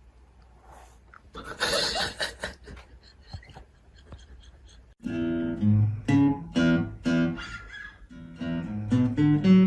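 A short burst of noise about one and a half seconds in, then acoustic guitar music with plucked notes that starts abruptly about halfway through.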